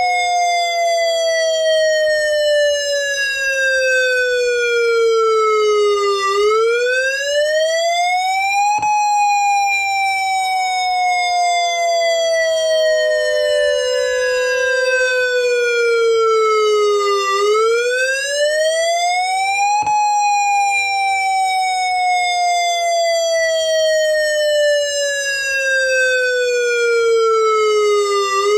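Outdoor warning siren sounding a wailing tone during a test. Its pitch falls slowly for about eight seconds, then sweeps quickly back up over two or three seconds, and this repeats. A steady tone is held underneath, and a faint click comes at each top of the sweep.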